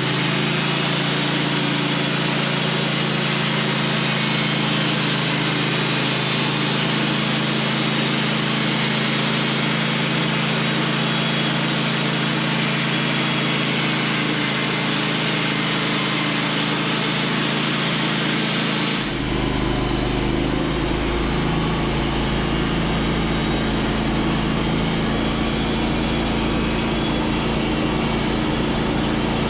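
Sawmill running with its carbide blade cutting through a knotty spruce log, a loud, steady machine sound with a high hiss over a low hum. About two-thirds of the way through, the sound changes abruptly: the high hiss drops away and a deeper hum takes over.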